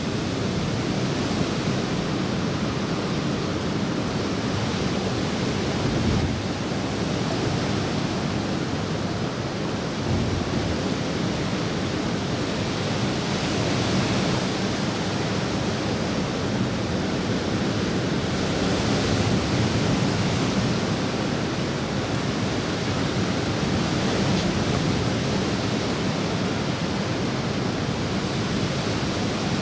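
A steady, even rush of rain and moving water, with light rain falling on a swimming pool.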